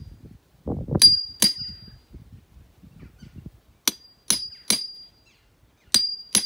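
Hammer blows on the steel head of a Strainright fencing chisel as it cuts a square strut mortise into a wooden fence post. There are seven sharp, ringing metal strikes in three quick groups: two, then three, then two.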